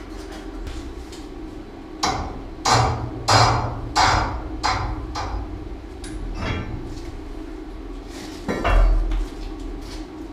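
Sharp metallic knocks on steel pipework and a valve, six strikes about half a second apart starting about two seconds in, then a single heavier knock with a dull thud near the end.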